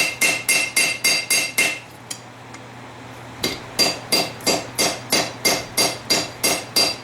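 Hammer blows on a farrier rasp on an anvil, a rapid, even rhythm of about four strikes a second with a clear metallic ring after each. The blows stop for about a second and a half near two seconds in, then start again with a higher-pitched ring.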